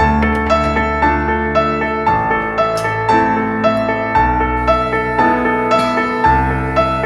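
Background piano music: evenly paced notes about twice a second over low bass notes that change every two seconds or so.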